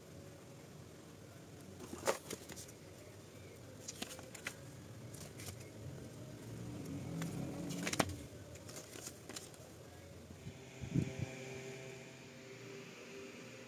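Quiet handling noise: soft rustling and scattered light clicks and taps as hands turn over a USB cable and a paper instruction sheet, the sharpest about two seconds and eight seconds in. A faint steady hum comes in about ten seconds in.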